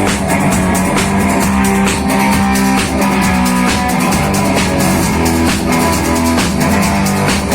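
Rock band playing live: a drum kit keeps a steady beat under guitar and other sustained pitched parts, with no singing in these seconds.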